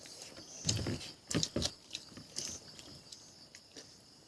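A person chewing and biting food close to the microphone, with a few wet smacks and clicks clustered in the first two seconds and fainter ones after.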